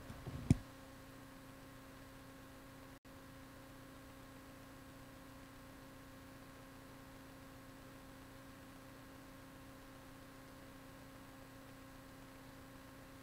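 Steady electrical hum with faint hiss, several even tones held level throughout. A sharp click about half a second in, and the sound cuts out for an instant at about three seconds.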